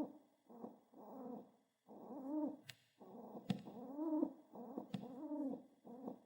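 Pet pigeon cooing in a run of short calls that rise and fall in pitch, with three sharp taps from its beak pecking the ground.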